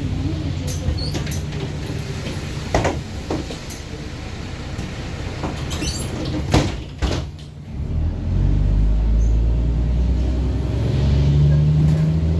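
Mercedes-Benz Citaro E3 city bus diesel engine with a blown exhaust, heard from inside the bus: it runs under a few knocks and rattles, then about eight seconds in turns much louder and deeper as the bus pulls away under throttle.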